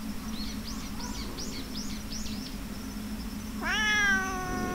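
A domestic cat gives one long meow starting a little past halfway, rising at first and then held and sagging slightly to the end. Earlier, a quick run of about eight short, high chirps sounds more faintly.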